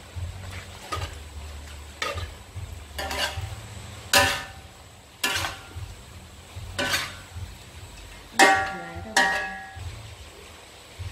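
A metal spatula scrapes and knocks against a wok, about once a second, as frog pieces and shredded ginger are stir-fried over a light sizzle. Two strokes late on ring out with a metallic clang.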